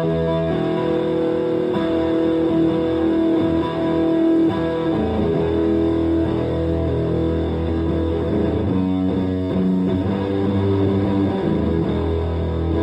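Electric guitar, a Fender Telecaster Deluxe played through a green Russian Big Muff fuzz pedal into a Fender Twin Reverb–style amp. It holds long sustained notes for the first few seconds, then moves through busier changing notes and chords.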